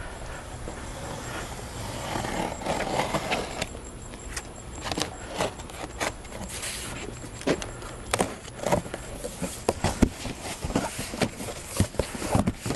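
Handling noise from a large boxed evaporative cooling fan: scattered knocks, taps and scrapes against the carton, coming more often in the second half, over a low steady rumble.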